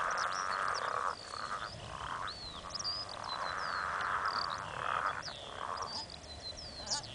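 Green and golden bell frogs calling from a pond: several finely pulsed calls of about a second each, with birds chirping short falling notes above them.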